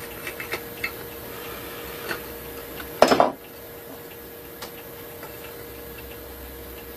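Small taps and clicks of hand woodworking tools on a wooden plane body, with a louder rapid clatter of knocks about three seconds in.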